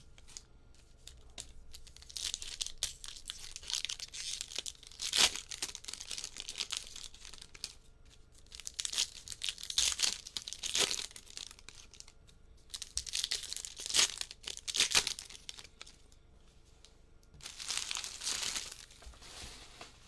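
Foil trading-card pack wrappers being torn open and crinkled by hand, in irregular bursts of rustling with several sharp rips.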